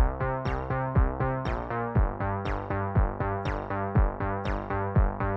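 Background music: keyboard chords over a steady beat of about two hits a second.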